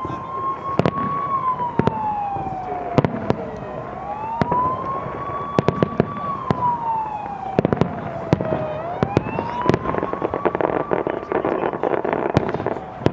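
Fireworks bursting overhead in a string of sharp bangs, with dense crackling near the end. Under them a siren wails up and down three times, each rise quick and each fall slow.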